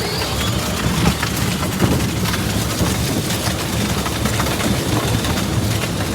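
Steady rumbling noise of a ride-on toy car rolling along a street, its wheels on the pavement, with wind on the microphone.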